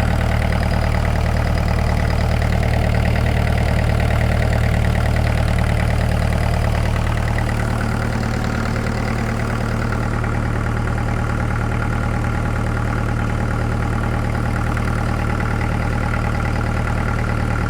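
Kubota KX121-3 mini excavator's diesel engine idling steadily up close, with exhaust escaping through a hole in its muffler. The leak is pretty bad, and the muffler needs replacing.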